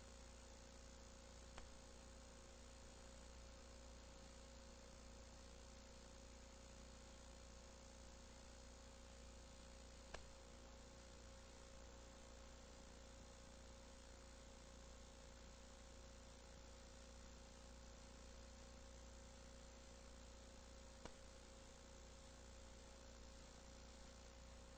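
Near silence: a steady faint electrical hum and hiss from an old videotape transfer, with a few faint single clicks.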